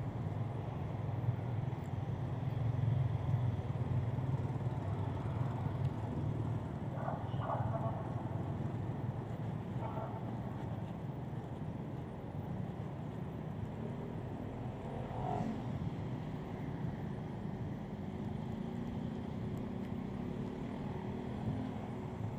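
Road traffic from cars and motorcycles moving slowly past, a steady low engine rumble. Near the end an engine's pitch gradually rises.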